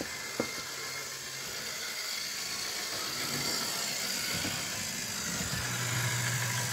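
Model railway shunter locomotive running along the track: a steady whir from its small motor and wheels that grows louder near the end. A single sharp click about half a second in.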